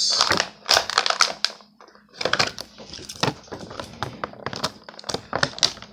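Clear plastic blister packaging crinkling and crackling as it is squeezed and bent in the hands: a run of irregular sharp clicks and crackles, with a brief lull about two seconds in.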